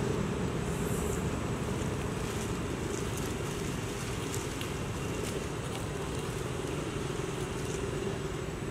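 Steady outdoor background rumble with a constant low hum and scattered faint high ticks.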